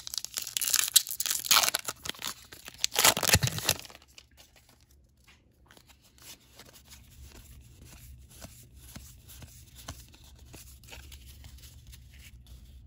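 A baseball-card pack wrapper being torn open and crinkled for about four seconds. After that come faint flicks and rustles of the cards being thumbed through by hand.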